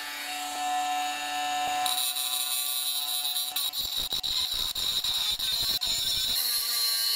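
Bosch Professional 12-volt cordless angle grinder running free with a steady whine, then biting into a welded steel square-tube brace about two seconds in: a harsh, hissing grind with a strong high ring and irregular chatter, easing to a lighter grind near the end. The small grinder cuts the steel only slowly; the owner finds it too light for the job.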